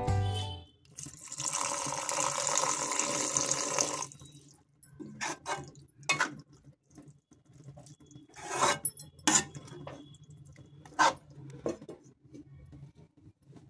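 Water poured into a steel kadai for about three seconds, a steady splashing rush. Then a steel ladle stirs the spinach and peas, scraping and clinking against the pan's side several times, with one clink ringing briefly.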